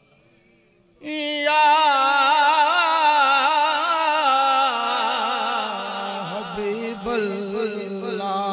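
A man singing a naat into a microphone. After about a second of near silence he comes in suddenly on a long, ornamented melismatic line of wavering held notes, and his pitch drops lower about halfway through.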